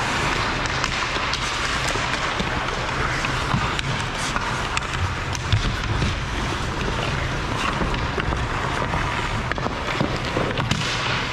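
Ice hockey skates scraping and carving on the ice in a steady hiss, with sharp clacks of sticks and puck now and then, the loudest about five and a half seconds in.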